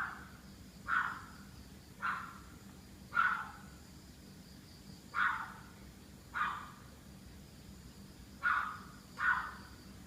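A dog barking in single barks, about one a second, eight in all with a longer pause about halfway through. This is persistent nuisance barking, going on without apparent cause.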